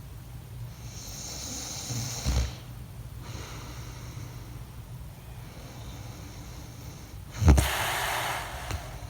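A man snoring in his sleep. A noisy breath ends in a short low snort about two seconds in, then comes a quieter breath. About seven and a half seconds in there is a sudden loud snort, followed by a long rushing breath.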